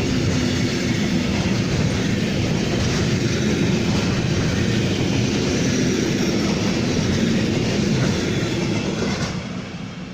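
A train running past on the tracks, loud and steady, then dying away over the last second or two.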